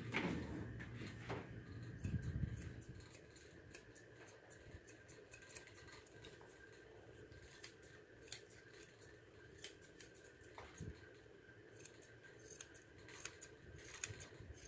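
Grooming shears snipping through a standard poodle's dense coat in quick, irregular runs of crisp snips. A low, muffled rustle comes in the first couple of seconds.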